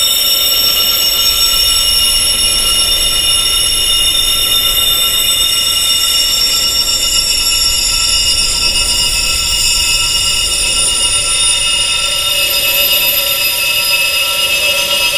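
Wind chimes tuned high, to the pitch of tinnitus: many high metallic tones ringing and overlapping without a break, over a faint hiss.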